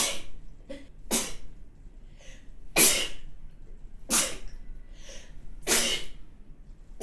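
A person sneezing in a rapid series of wet, spraying sneezes: five sharp sneezes about one and a half seconds apart, most with a quick catch of breath before them, and a sixth starting right at the end.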